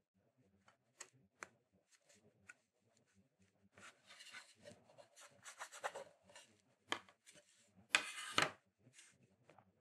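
A small carving gouge making a few faint clicks as it nicks chips out of a wooden printing block, then the block being picked up, turned and slid across the work surface: a rubbing scrape from about four seconds in, a knock near seven seconds, and the loudest scrape about eight seconds in.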